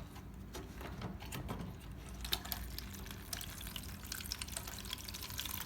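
Water trickling and splashing out of a Samsung washing machine that will not drain on its own because its drain pump won't run; the splashing grows busier about two seconds in.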